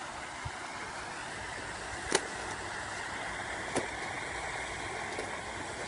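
Steady outdoor background noise, with two sharp clicks, the first about two seconds in and a fainter one shortly before four seconds in.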